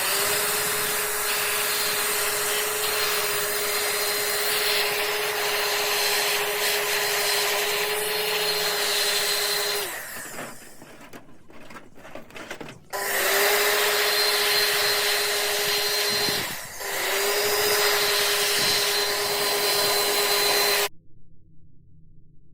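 A small high-speed electric motor tool running with a steady whine over airy noise, in three spells. It stops after about ten seconds, starts again a few seconds later, cuts out and restarts briefly, then switches off shortly before the end.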